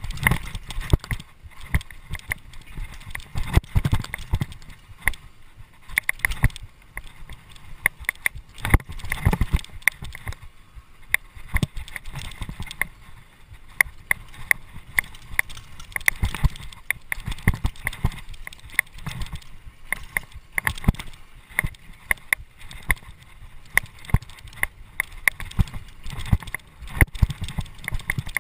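Mountain bike rattling over a bumpy dirt trail: a dense, irregular run of sharp clicks and knocks from the bike's chain and frame, over a low rumble of the tyres on dirt.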